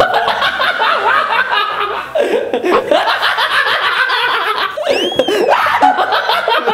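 Men laughing hard and at length, with a brief high squeal that rises and falls about five seconds in.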